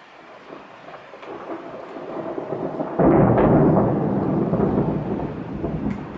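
Thunder rumbling: a roll that builds, breaks loudest about three seconds in, then slowly fades.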